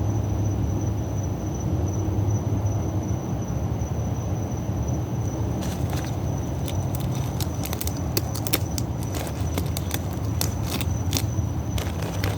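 Rubber bands being stretched and snapped onto a watermelon: a series of sharp, irregular snaps from about halfway through, over a steady low rumble.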